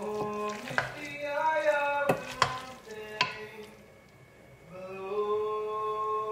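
A woman humming a few long held notes of a tune, with four sharp clicks of kitchen things being handled in between.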